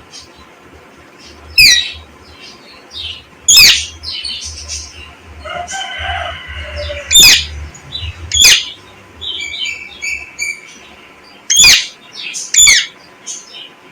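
Pet parrot giving loud, sharp shrieks, about six of them a second or more apart, each sliding down in pitch, with softer chirps in between.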